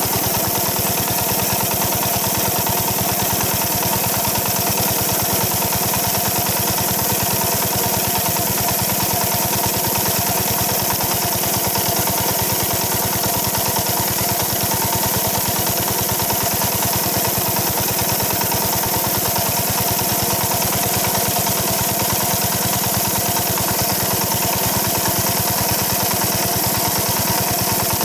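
Old single-cylinder diesel farm engine running steadily and smoothly with a fast, even beat, belt-driving an irrigation water pump.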